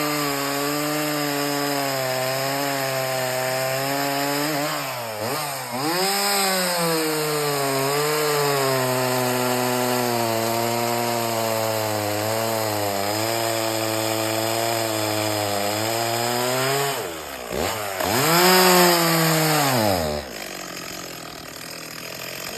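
Stihl MS 260 two-stroke chainsaw cutting wood, its engine pitch held down and wavering under load through long cuts. It briefly revs free about five seconds in and again, loudest, near the end, then drops to a quieter, lower run for the last couple of seconds.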